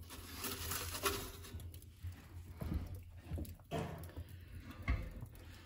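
Wood fire burning in the firebox of a wood-fired hot water tank, with irregular crackles and rustling, and a dull knock about five seconds in.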